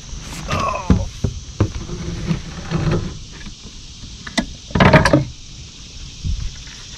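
Handling noises in a plastic fishing kayak: irregular knocks, scrapes and a short creak, with a louder clatter about five seconds in.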